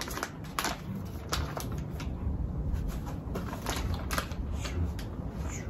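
Plastic dog-food pouch crinkling and crackling as it is handled and opened, in irregular clicks.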